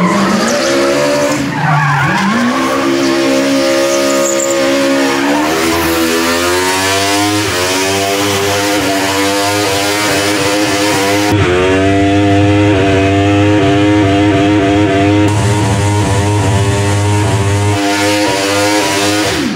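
Honda CBR 1000RR inline-four motorcycle engine in a 1964 Honda S600 running at high revs, near 12,000 rpm, while the rear tyres spin and squeal in donuts. The engine note rises, dips and wavers again and again as the car swings back and forth.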